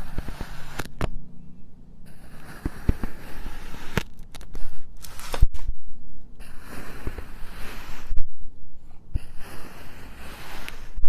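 Kinetic sand being cut and crumbled, with gritty crunching and crackling and many sharp little clicks. It comes in several short takes split by brief silent breaks.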